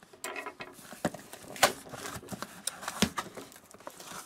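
A cardboard box and its packaging being handled and opened: a string of sharp clicks and taps with light rustling.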